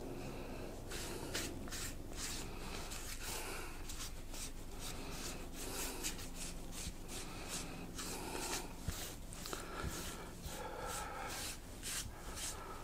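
Hands rubbing and pressing on glued EVA foam road material, a run of quick, irregular scratchy strokes, over a steady low electrical hum.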